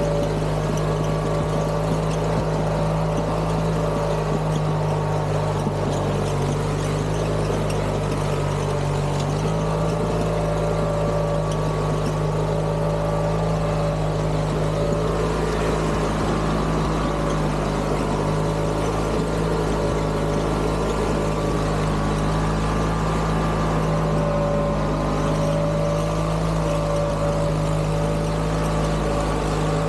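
Craftsman GT6000 garden tractor's engine running steadily while the tractor crawls along slowly off-road, with a steady whine over the engine note.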